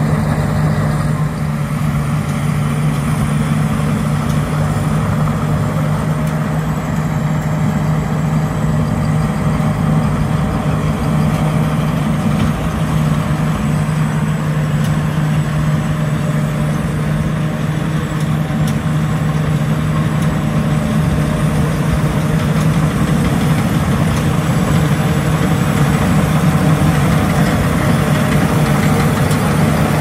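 Tracked rice combine harvester's engine and threshing machinery running steadily as it cuts rice, a constant low hum with a rattling mechanical noise over it, growing a little louder near the end as the machine comes closer.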